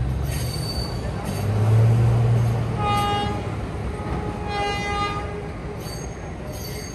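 Diesel work locomotive hauling a train of subway cars, its engine running with a heavy low drone that swells about two seconds in. Its horn then sounds twice: a short blast about three seconds in and a longer one at about five seconds.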